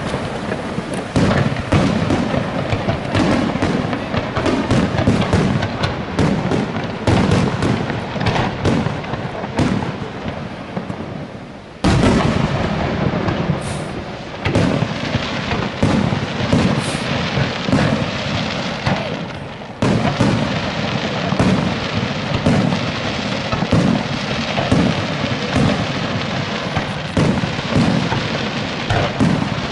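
Aerial fireworks display: a dense, continuous barrage of shell bursts and bangs, with the loudness jumping up suddenly about twelve seconds in and again about twenty seconds in.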